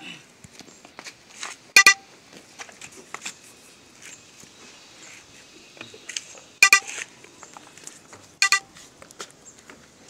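Four short car horn toots, each a brief beep: one right at the start, then at about two seconds, near seven seconds and at eight and a half seconds.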